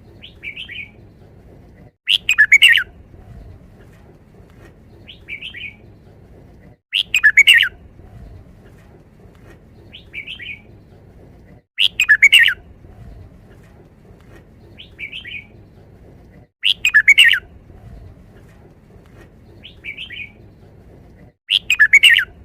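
Red-whiskered bulbul singing its short five-syllable 'wild song' phrase, repeated about every five seconds, five times. Each loud, quick run of notes is preceded by a softer short note.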